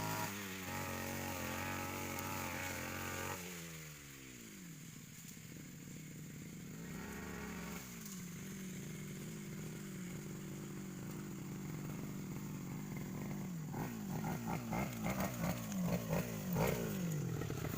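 Brush cutter engine running at high speed, then the throttle is let off a few seconds in and the revs fall away to a low steady run. Near the end it is revved again in a quick series of rises and falls.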